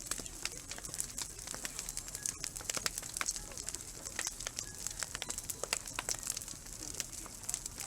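Wood fire crackling: a dense, irregular run of sharp pops and snaps over a low steady hiss of burning.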